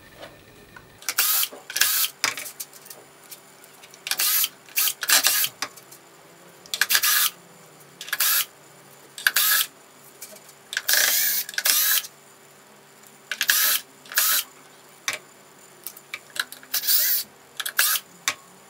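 Cordless power drill with a Phillips bit backing screws out of a plastic housing in over a dozen short bursts, about one a second with gaps between.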